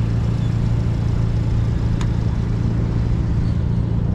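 Vehicle engine idling with a steady low hum, and a single short click about two seconds in.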